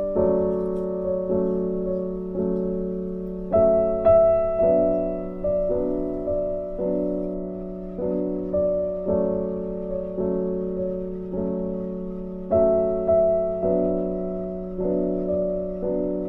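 Background piano music: a slow melody of single notes, each struck and fading, about one a second, over a held low note.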